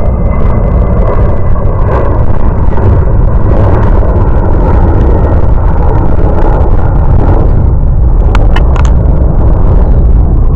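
Jet aircraft engines running at close range: a loud, steady rumbling roar with a faint turbine whine that slowly falls in pitch as the aircraft passes.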